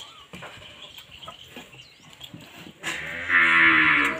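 A rooster crows loudly once, starting about three seconds in, and is cut off abruptly at the end. Before it there are only faint scattered clicks.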